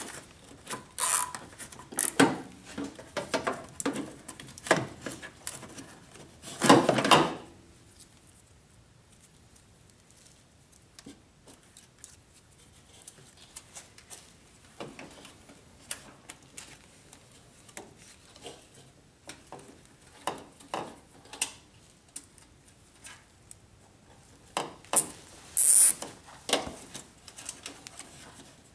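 Hands working plastic zip ties around an HID ballast and wiring harness: scattered clicks, taps and rubbing, with one longer rasp about seven seconds in and a quieter stretch after it.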